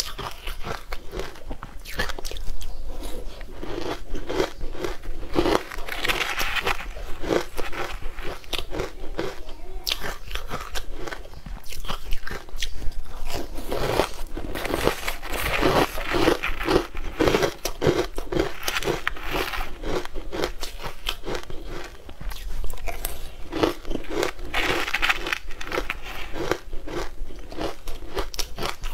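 Close-miked chewing and crunching of crumbly food, a dense run of crisp crackles that comes in louder spells.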